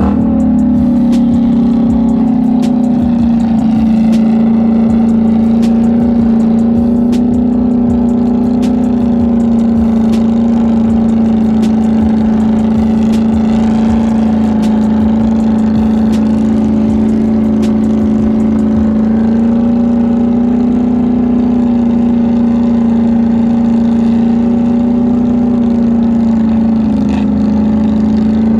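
Polaris Sportsman 850 Highlifter ATV's twin-cylinder engine running at a low, steady speed while the quad rolls slowly along, its pitch holding nearly constant.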